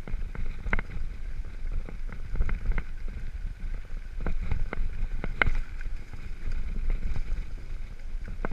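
Mountain bike rolling downhill over a stony dirt trail: a steady low rumble of tyres and wind on the microphone, with irregular sharp clicks and rattles as the bike jolts over bumps.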